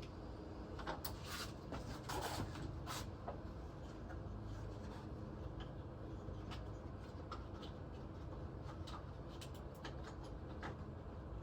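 Scattered light clicks and scrapes of hand work, with a cluster of louder scraping sounds about one to three seconds in, over a low steady hum.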